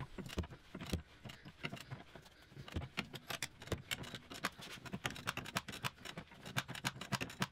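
Large Clarke ratchet with an 18 mm socket clicking in quick runs as its handle is swung back and forth, winding out a rear suspension strut bolt that had been seized.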